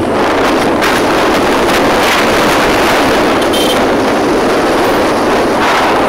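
Steady rush of wind and road noise in a moving vehicle, heard at an open side window.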